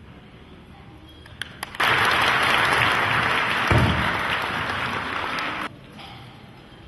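Audience applauding: a few single claps about a second and a half in, then dense, steady clapping for about four seconds, with a low thump partway through, before it cuts off suddenly.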